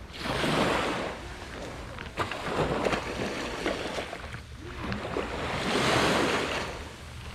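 Sea waves breaking and washing up a sandy beach, swelling twice about five seconds apart, with scattered short taps in between.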